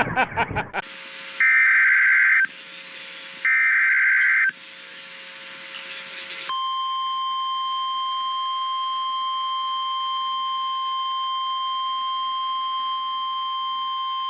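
Two loud electronic beeps about a second long each, then, about six seconds in, a steady single-pitch alert tone near 1050 Hz that holds without change. It is the NOAA Weather Radio warning alarm tone that signals a warning broadcast is about to follow.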